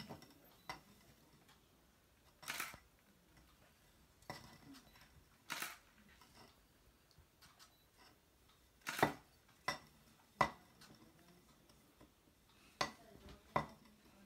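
About a dozen sharp clicks and light knocks at irregular intervals, a few seconds apart, the loudest around the middle.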